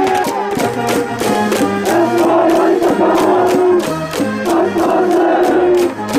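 High school baseball cheering section: cheer music with a steady drumbeat and held melody notes, the students chanting along.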